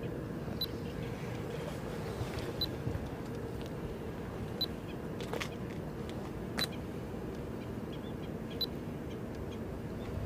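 Steady low harbour rumble with a faint hum, and a short high tick that repeats every two seconds.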